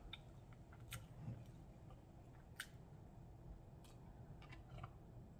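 Near silence, broken by sparse faint mouth clicks from chewing, then a few small clicks near the end while drinking water from a cup.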